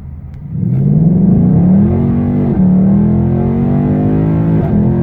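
Car engine accelerating hard, its pitch climbing steadily and dropping sharply twice as it shifts up through the gears.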